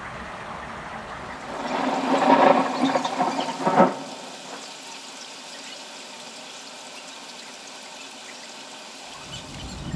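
Heavy rain falling steadily. About one and a half seconds in, a louder rushing sound with a faint whine in it swells for about two seconds and ends sharply. From there on the rain is an even hiss.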